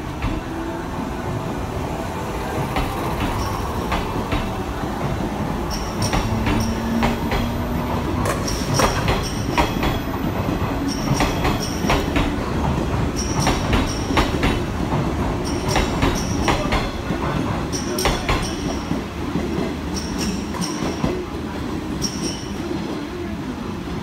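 Orange JR West 103 series electric train running along the platform, its wheels clacking again and again over rail joints with short high squeals. It grows louder from about eight seconds in.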